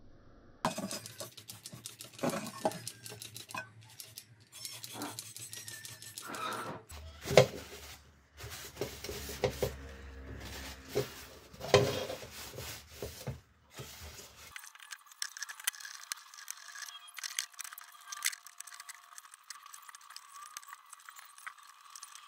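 Metal parts of an old kerosene lamp burner being handled and cleaned: light metal clinks and knocks, two of them louder about seven and twelve seconds in. Later comes a stretch of rapid small rubbing and scraping against the metal.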